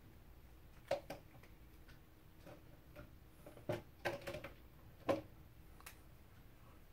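A handful of short, sharp clicks and taps, irregularly spaced, from a felt-tip marker being handled on a wooden tabletop.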